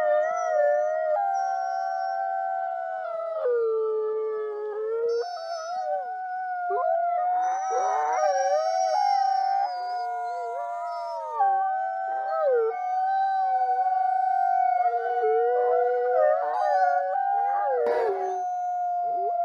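Several wolves howling together in overlapping long howls: one holds a steady note throughout while others slide up and down around it. A brief click comes near the end.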